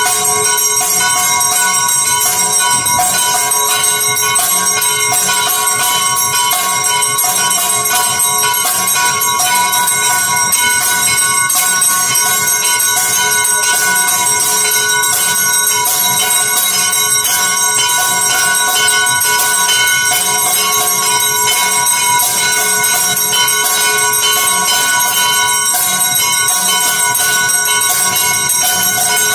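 Metal temple bells ringing without a break, a fast, dense clanging whose tones hang on and blend into one another.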